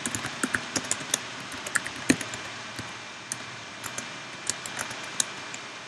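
Typing on a computer keyboard: irregular key clicks, bunched in the first couple of seconds and sparser after.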